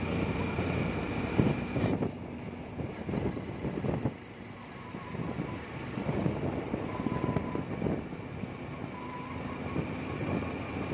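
Road noise and wind gusting on the microphone while riding along a concrete road, a little quieter for a couple of seconds after about two seconds in.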